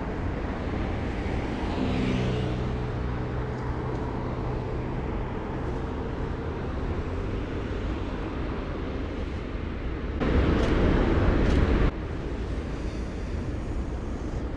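City street traffic: a steady low rumble, with a vehicle engine passing about two seconds in. About ten seconds in, a louder rushing noise starts suddenly and cuts off abruptly under two seconds later.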